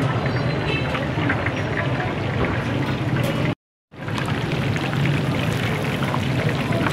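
Fish pieces deep-frying in a large karahi of hot oil: a steady sizzle with small crackles over a low steady hum. The sound cuts out completely for a moment about three and a half seconds in.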